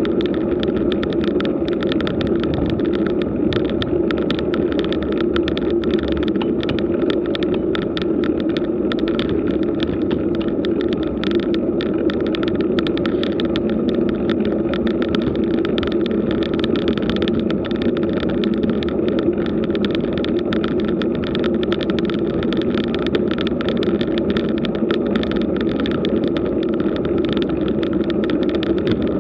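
Road bike rolling uphill on rough asphalt, picked up by a bike-mounted camera. The tyres on the coarse surface give a steady, even rumble, with a fine, continuous rattle running through it.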